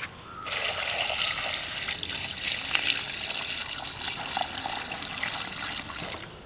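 Water poured from a plastic bucket into a steel bowl of dressed quail, splashing steadily as the birds are rinsed. The pour starts abruptly about half a second in and cuts off shortly before the end.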